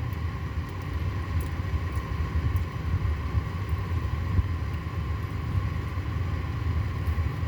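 Steady low rumble with a faint constant hum above it.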